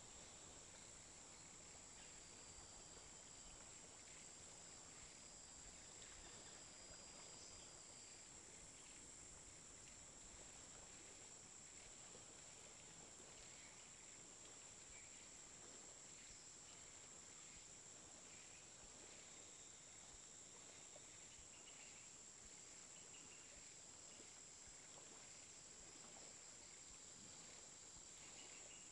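Near silence: faint room tone with a steady high-pitched whine throughout.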